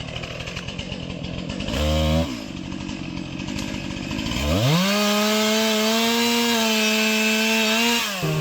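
Two-stroke chainsaw idling, blipped briefly about two seconds in. It then revs up to full throttle about halfway through and holds there steadily for some three seconds as it saws into a log, dropping back near the end.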